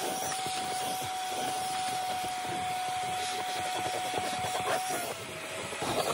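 Shop vacuum running with a steady whine, with wood chips and debris rattling up through the hose nozzle as it sweeps over the board. About five seconds in, the whine drops slightly in pitch.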